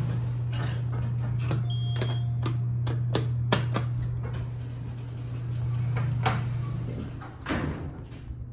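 Elevator doors closing: a series of sharp clicks and knocks from the door equipment over a steady low hum.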